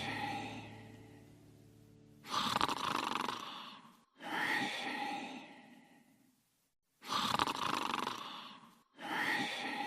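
Cartoon character snoring: four snores about two seconds apart, each starting abruptly and fading away. A held musical chord fades out during the first two seconds.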